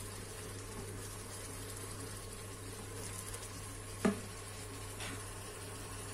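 Onions and white wine sizzling gently in an electric multicooker's non-stick pot as the wine cooks off, stirred with a silicone spatula, over a steady low hum. A sharp knock about four seconds in and a lighter one a second later.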